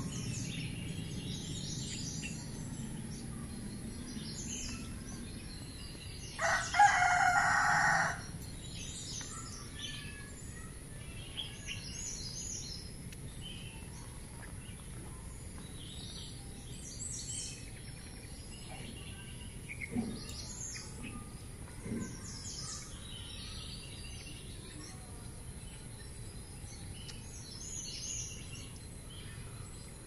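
A rooster crows once, about six seconds in, for about two seconds, over scattered bird chirps and a steady faint high-pitched tone.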